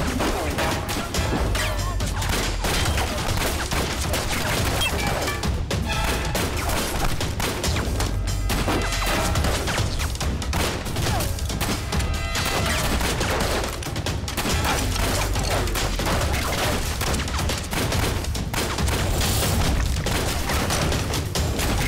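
Gunfight sound effects: repeated pistol and rifle shots in quick succession, over a dramatic action-film music score.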